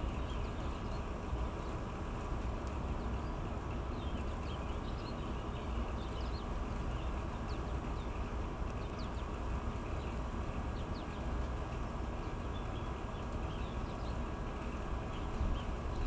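Back-yard ambience: a steady low rumble of background noise, with many faint, short chirps from small birds scattered throughout.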